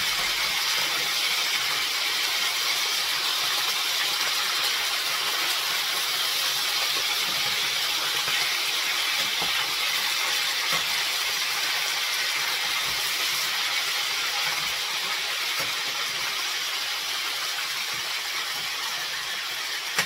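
Raw chicken pieces frying in hot oil in a stainless steel pan: a steady sizzle, easing slightly toward the end, with a few faint scrapes of a slotted metal spoon turning the pieces.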